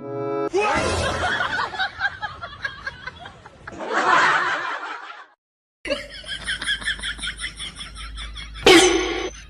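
People laughing for about five seconds. After a short silent break comes a quick repeating patter, then a brief, loud pitched cry near the end.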